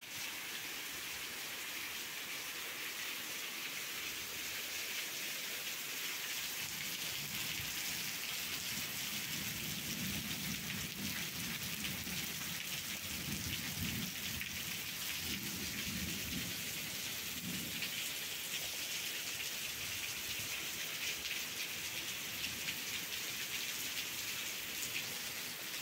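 Heavy rain pouring down in a steady downpour. Low rumbles of thunder come through in the middle stretch.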